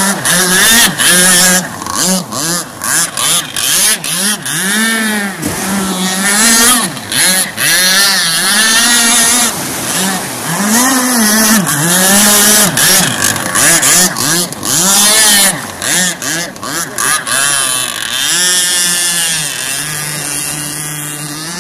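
The 26 cc two-stroke petrol engine of an RC speedboat, running fast on the water. Its note rises and falls again and again as the throttle is worked through turns. Near the end it holds a steadier, lower note for a couple of seconds, then climbs again.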